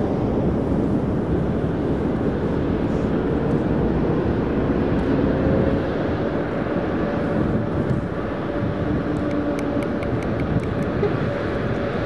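Steady rumble of road traffic, with a faint engine and tyre hum running through it. About two-thirds of the way through comes a quick run of faint high ticks.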